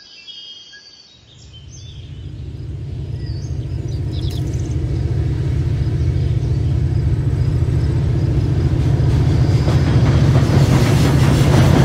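HO-scale model diesel locomotives approaching, with a low, steady engine rumble that starts about a second in and grows steadily louder.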